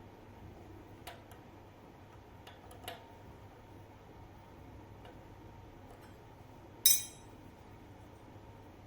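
Light metallic clicks of a hex key working a bicycle crank bolt loose, with one sharp, ringing metal clink about seven seconds in.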